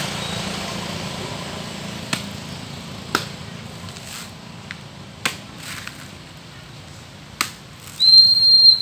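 Four sharp chops a second or two apart, from a knife cutting coconuts from a palm. Near the end comes a short, high, steady whistle-like tone, the loudest sound here.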